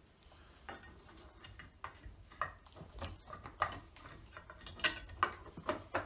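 Irregular small clicks and taps as the interior cover of a Schlage BE365 keypad deadbolt is handled and fitted onto its mounting plate.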